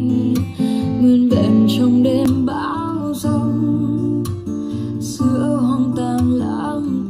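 Guitar-led music played back through a Bluetooth speaker in a sound test.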